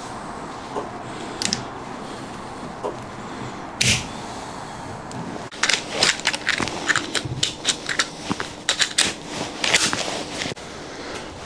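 Irregular rustling and crackling with sharp clicks, sparse at first with one sharp knock about four seconds in, then busy and continuous from about halfway.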